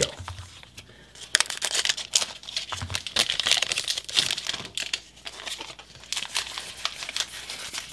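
Foil wrapper of a Pokémon TCG booster pack crinkling and tearing as it is opened by hand, in many irregular crackles.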